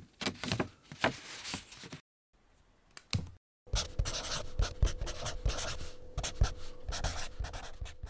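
Pen scratching on paper in quick strokes, in several spells broken by brief pauses, like writing out a heading by hand. A faint steady hum comes in about four seconds in.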